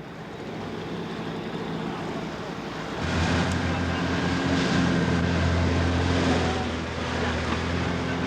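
Boat engine drone over a haze of wind and sea noise, growing louder and stronger about three seconds in.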